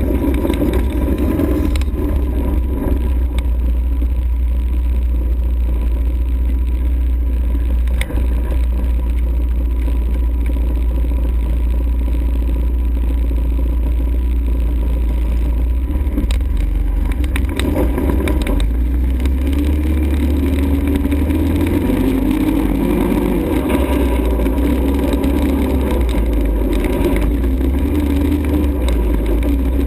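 ATV engine running while riding, over a heavy steady low rumble; its pitch climbs and wavers about twenty seconds in. A single sharp knock about eight seconds in.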